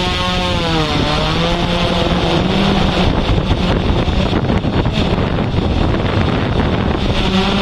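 Quadcopter drone's motors and propellers whirring. Their pitch drops about a second in, then gives way to a rough rushing noise, and the steady whir returns near the end.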